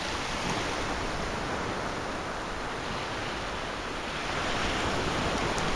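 Small waves of a calm sea washing around the filmer: a steady rushing hiss of water that swells slightly near the end.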